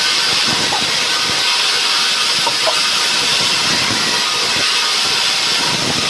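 Sawmill saw cutting through a pine log: a loud, steady hiss with machinery running underneath.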